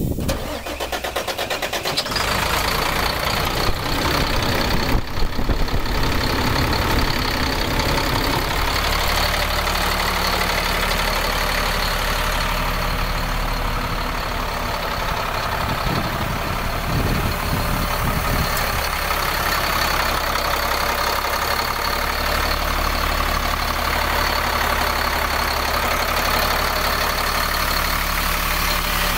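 2007 Sterling LT8500 dump truck's diesel engine being cranked by the starter, catching about two seconds in, rising briefly around five seconds, then settling into a steady idle.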